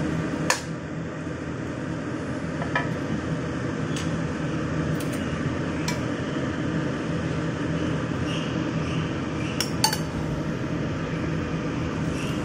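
Metal ladle clinking against a stainless steel wok of broth: about seven sharp taps spread out, the loudest about half a second in and again near the end, over a steady low hum.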